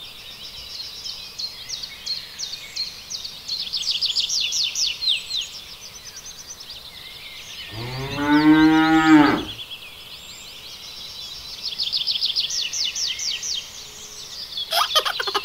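A cow moos once, a single low call of nearly two seconds about eight seconds in. Rapid high chirping trills come and go in the background.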